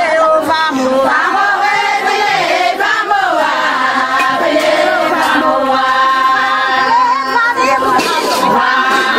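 A group of voices singing together in chorus, several pitches sounding at once.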